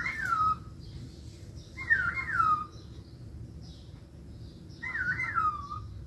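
Cockatiel whistling a short wavering phrase three times, about every three seconds, each phrase ending in a falling glide.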